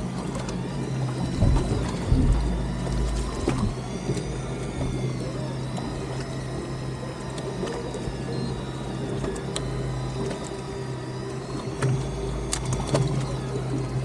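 Boat engine running steadily at idle, with a couple of low thumps about two seconds in and a few sharp clicks near the end.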